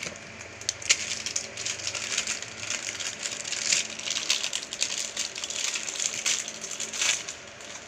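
Plastic packaging crinkling and rustling in the hands, with many small crackles, as a hard disk is taken out of its wrapping.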